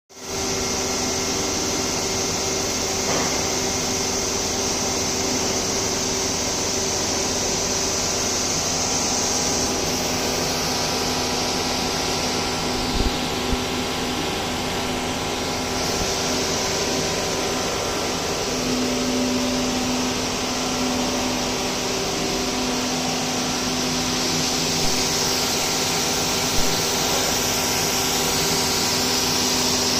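Machinery of a twin-screw PVC pipe extrusion line running: a steady hum with several held tones and a high hiss. One of the low tones grows louder about two-thirds of the way through, and there are a few light knocks.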